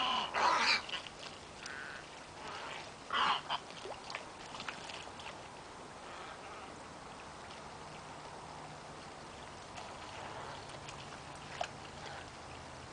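Wading birds (egrets and white ibises) giving a few short, harsh calls in the first four seconds of a feeding flock, then only a low steady background.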